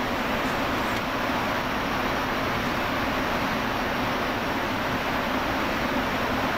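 Steady background machinery drone: a constant low hum under an even hiss, unchanging throughout, with no distinct knocks or strikes.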